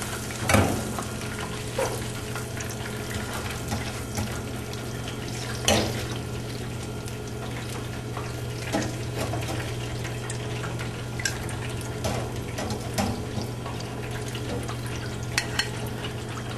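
Hot shortening in a deep fryer sizzling steadily after fried grouper fillets are lifted out to drain, over a constant low hum, with a few light clinks.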